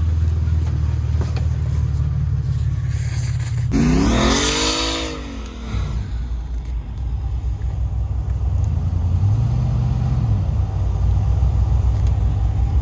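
Off-road Toyota pickup's engine running low and steady as it crawls through a muddy rut. About four seconds in the sound changes abruptly to an engine revving up and back down once, then running steadily.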